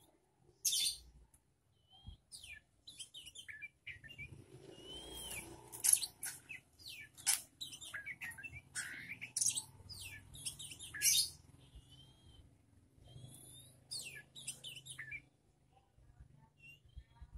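A young oriental magpie-robin and other songbirds chirping and calling: a run of varied short whistles, slurred notes and sharper rasping chirps. The calling is busiest from about four seconds in and thins out near the end.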